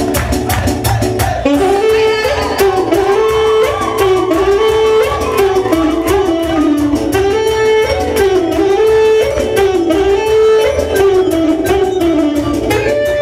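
Live folk dance music for a circle dance: a lead melody instrument plays quick, ornamented, wavering runs over a steady beat, with a stronger melody line coming in about a second and a half in.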